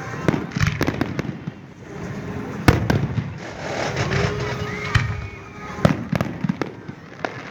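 Fireworks display: aerial shells bursting in a string of sharp bangs with crackling between them, the loudest bang a little under three seconds in.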